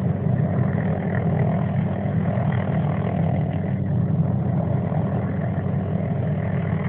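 Helicopter running steadily, a loud unbroken low sound.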